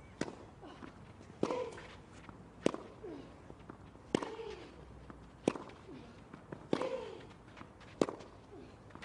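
Tennis rally: a ball struck back and forth with rackets, about seven sharp hits a little over a second apart. Several shots carry a player's short grunt that falls in pitch.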